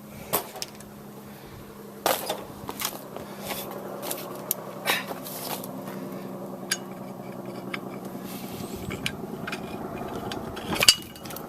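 Scattered metallic clicks and clanks of lug nuts being put on and tightened on a car wheel, with one loud knock near the end, over a steady hum.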